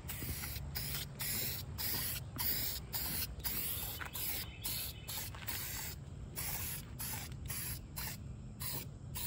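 Aerosol spray-paint can spraying in a long run of short hissing bursts, the nozzle pressed and released again and again.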